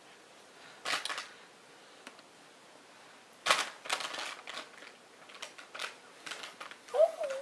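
Short bursts of rustling and clicking handling noise: one about a second in, then a longer cluster from about halfway, with scattered clicks after it. A brief voice sound comes near the end.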